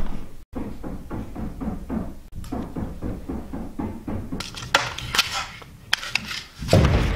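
Background music with a quick, steady beat, then crackly handling noises from a plastic-packaged product about four to five seconds in, and a low thump just before the end.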